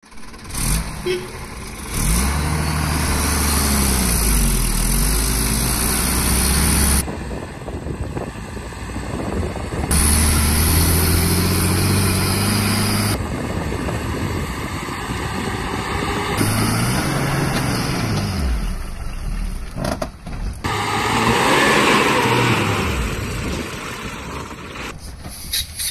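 Diesel engine of a Tata 10-wheeler truck hauling an excavator, revving and labouring under the load on a steep dirt climb, its pitch rising and falling. The sound changes abruptly several times where separate shots are joined.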